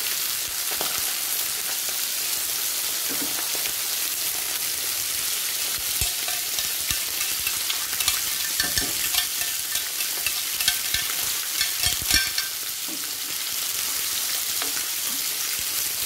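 Prawns and chicken frying in hot pans: a steady sizzle, as skewered prawns are scraped off a board into the pan. A run of light clicks and taps from metal tongs comes between about six and twelve seconds in.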